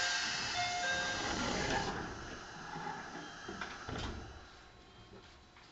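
A sudden hiss of compressed air from a JR 211 series electric train's pneumatic system, with short whistling tones in it, dying away over about two seconds. A couple of knocks follow.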